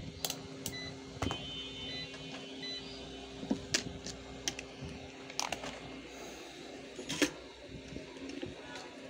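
Digital multimeter's rotary dial clicking and test leads being handled on the bench, a series of sharp clicks and knocks, with a short electronic beep about a second in. A steady low hum runs underneath.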